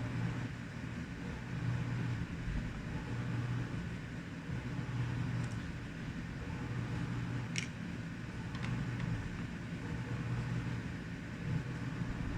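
Steady low hum, with two small clicks about seven and a half and eight and a half seconds in.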